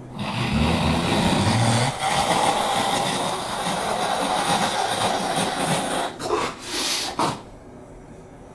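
A loud, steady rushing noise with a low rumble in the first two seconds, cutting off sharply about seven and a half seconds in.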